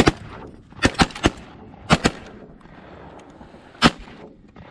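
Shotguns firing at ducks in flight: about seven sharp shots from several guns. One comes at once, a quick volley follows over the next two seconds, and a last shot comes near the end.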